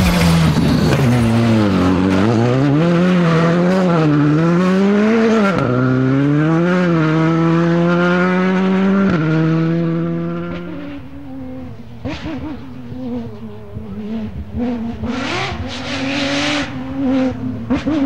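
Rally car engine at full throttle, revs climbing and dropping repeatedly through gear changes and lifts. It then holds a high note that fades away about ten seconds in. In the last part a quieter, lower engine note is heard with several sharp cracks.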